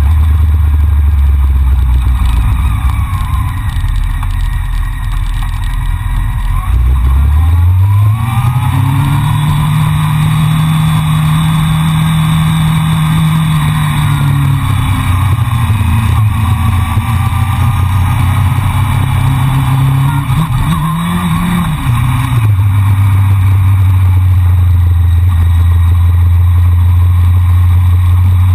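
Honda CBR600F4i sport bike's inline-four engine running under the rider at road speed over steady wind noise. About seven seconds in the revs climb as it accelerates and then hold. Past twenty seconds they rise briefly once more and then drop back to a lower steady pitch.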